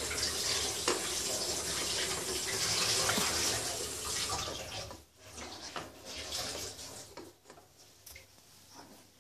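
Hairbrush bristles dragging through dry, curly hair close to the microphone: a steady rasping hiss for about four and a half seconds, then it stops and a few shorter separate strokes follow.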